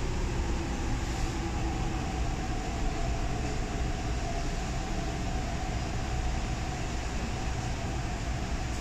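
Interior of an MTR East Rail Line R-Train electric train carriage running into a station: a steady rumble of wheels on the rails with a faint whine that sinks slightly in pitch.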